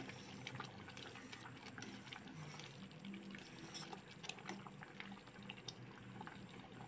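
Thick basmati rice kheer simmering in a steel pot as a spoon stirs it: a faint crackle of small bubbles popping, over a low steady hum.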